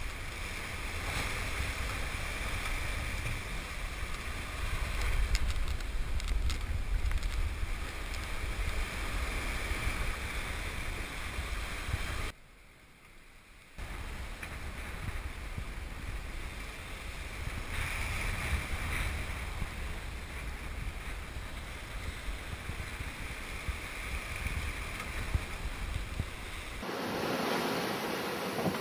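Wind buffeting the microphone with a low rumble over the rush of waves along a sailing yacht in heavy seas. The sound drops away briefly about halfway through, and near the end the low wind rumble stops, leaving the hiss of sea and wind.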